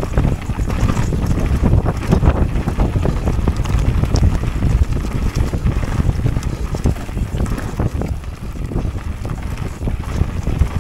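Wind buffeting the action camera's microphone as a steady low rumble during a fast mountain-bike descent on a leaf-covered dirt trail, with tyre noise and frequent clattering knocks from the bike over bumps.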